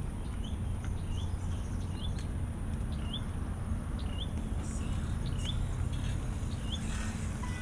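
A bird's short rising chirp, repeated about every half second, over a steady low rumble.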